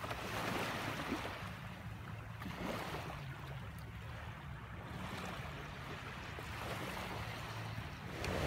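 Small, gentle sea waves washing onto a sandy shore, swelling and fading every few seconds, over a low steady rumble.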